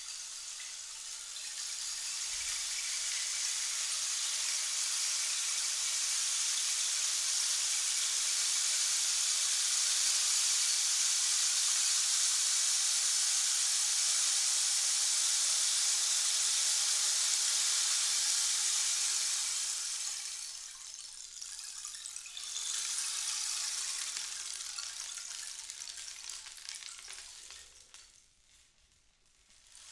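Giant rain stick, its filling trickling down through the tube in a continuous rain-like hiss. It swells over the first few seconds and holds steady, dips about two-thirds through, then surges again and fades almost to nothing just before the end.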